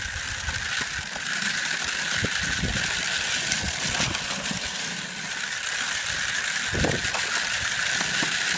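Steady running noise of the vehicle towing a child's toy ATV, with scraping and rattling as the toy slides over ice and snow.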